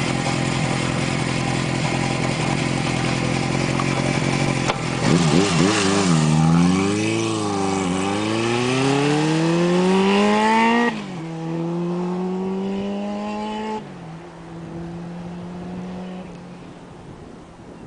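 1978 Honda CB750's air-cooled inline-four idling, then pulling away about five seconds in and accelerating off down the road. The engine note rises, drops at a gear change, rises again, drops at a second shift, and fades as the bike rides away.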